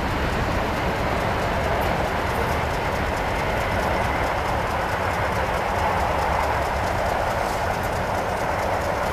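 Steady rolling noise of an intermodal freight train's cars passing, steel wheels running on the rails.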